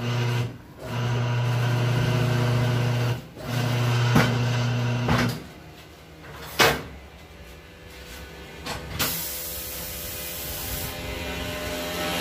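Electric tire changer's turntable motor humming in three stretches while a tubeless tire is worked onto the rim, stopping about five seconds in. A sharp clack follows, then a steady hiss from about nine seconds in.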